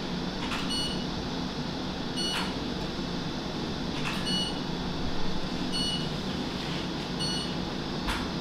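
Short electronic beeps from medical equipment, about five of them, roughly one every second and a half, each with a faint click near it, over a steady hum of room ventilation and machinery.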